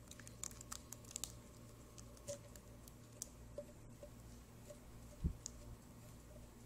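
Faint clicks and small taps of a cooking pot against a ceramic plate as cooked oatmeal is emptied onto it, with one louder knock about five seconds in. A steady low hum runs underneath.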